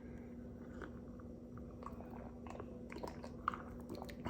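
Faint mouth sounds of a man sipping and swallowing juice from a glass, with small lip and tongue clicks and one sharper click about three and a half seconds in.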